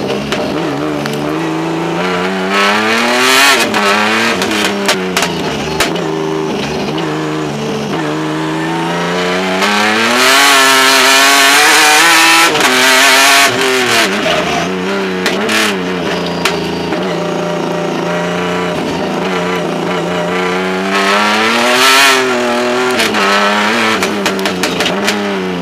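Hyundai Genesis Coupe Pikes Peak race car's engine revving up and falling back again and again as the driver goes on and off the throttle, heard from under the car with heavy road and wind noise. It is loudest for a few seconds around the middle and again near the end, with scattered short clicks and knocks.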